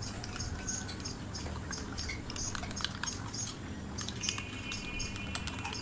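Raw eggs being beaten by hand with a metal utensil in a ceramic bowl: quick, uneven clicks of metal against the bowl, roughly three or four a second, with the wet slosh of the mixture.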